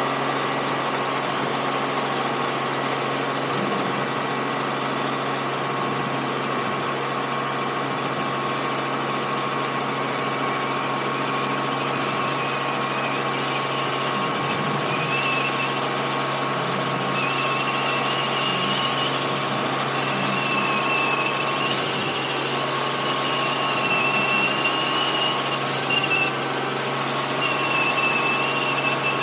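Robinson R44 helicopter's six-cylinder Lycoming piston engine and rotor running steadily under power, heard inside the cabin as it lifts off the runway and climbs away. A faint high wavering whine joins about halfway through.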